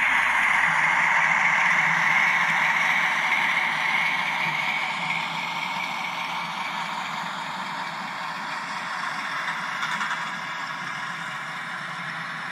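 Sound decoder of an N-scale model DB V162 (class 217) diesel locomotive playing diesel engine sound through its small speaker, mixed with the whirr and rolling clatter of the double-headed model locomotives and container wagons on the track. Loudest in the first few seconds, then fading.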